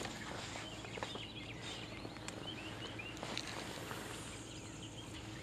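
Small birds chirping in short, repeated notes, faint against a steady outdoor background, with a few light taps.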